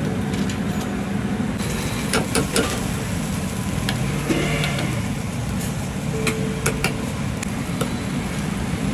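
Busy street-food stall: a steady low rumble with scattered sharp clicks and knocks of cooking utensils.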